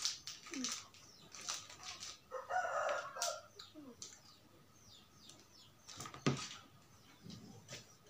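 Small plastic seasoning sachets crinkling and rustling as they are handled and torn open, in scattered bursts, with one sharp knock about six seconds in.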